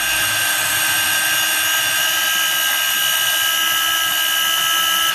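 Craftsman C3 19.2-volt 5½-inch cordless trim saw running free with no load, its motor and blade making a steady high whine. The saw has been freshly re-greased and seems to be running a little better.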